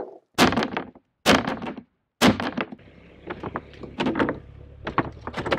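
A few hard knocks of a plastic belly pan striking concrete, each cut off short. From about two seconds in they give way to a steady low car-engine hum with scattered crackles and creaks as the car's tyre presses onto the pan.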